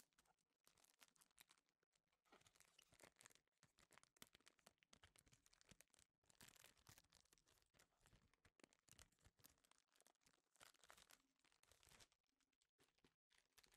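Faint crinkling and tearing of clear plastic shrink-wrap being picked at and peeled off a cardboard perfume box, heard as short irregular crackles.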